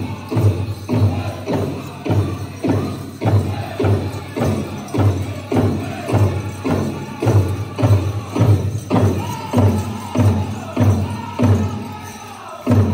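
Powwow drum group singing a chicken dance song over a large drum struck in unison, a steady beat of about two strokes a second. The beat softens briefly near the end.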